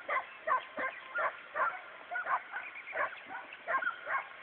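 Hunting dogs yelping and baying faintly in a quick, uneven string of short calls, about two or three a second, at a couple of different pitches. They are giving tongue as they chase a hare.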